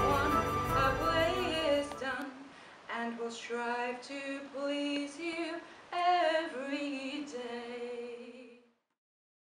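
Instrumental music ends about two seconds in. A woman then sings a few short unaccompanied phrases, stopping shortly before the end.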